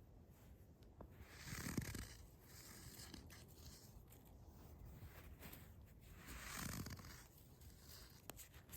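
Quiet footsteps crunching in snow, slow and uneven. The loudest crunches come about a second and a half in and again near seven seconds, with fainter steps between.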